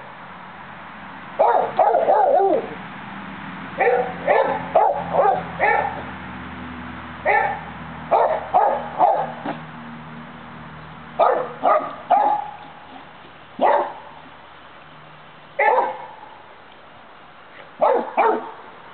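A dog barking: about twenty short barks in clusters of one to four, with pauses of a second or two between clusters.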